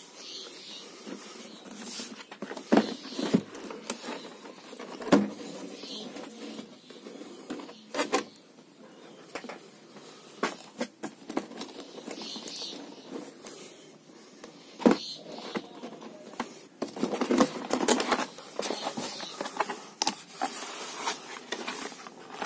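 Cardboard laptop box being handled and opened by hand: cardboard scraping and rustling with scattered sharp taps and knocks, busier near the end as an inner accessory box is opened.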